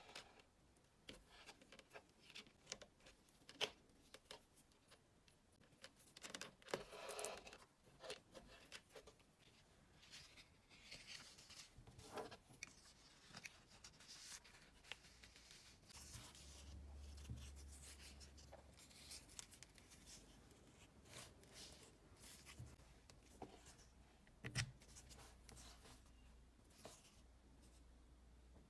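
Faint handling sounds of leather work: soft rubbing, rustling and scattered light clicks as hands stitch a leather case and fit it over an iPod mini, with a faint low hum from about halfway through.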